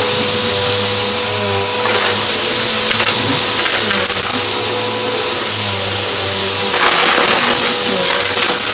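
Vacuum cleaner running steadily with a whining motor, with a few brief crackles of crunchy debris being sucked up about two seconds in and again near the end.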